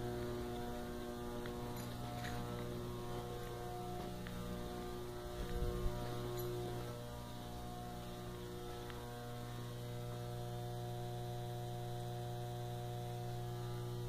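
Electrical boxes humming with a steady low mains hum and a stack of higher overtones. About five to six seconds in, a brief low thump rises over it.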